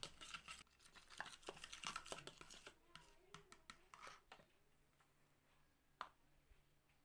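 Very faint handling noises: a quick run of small clicks and crinkles with a faint voice, easing off after about four seconds to near silence broken by a single click about six seconds in.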